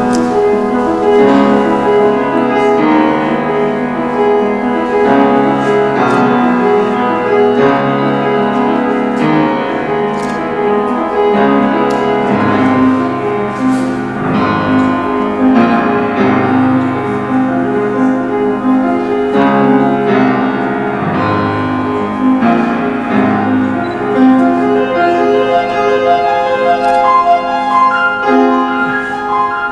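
Live instrumental music: a struck-string instrument playing a melody over bass notes.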